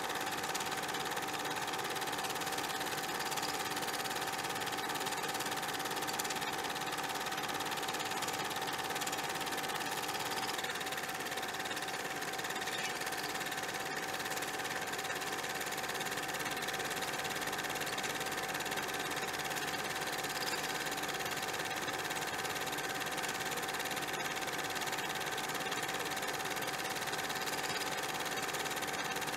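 A steady mechanical whir with hiss and a constant hum, unchanging throughout.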